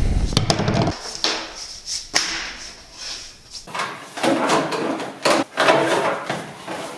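Irregular knocks, clicks and rattles of hands and tools working loose parts of a car's air-intake in the engine bay, with a low rumble that stops about a second in.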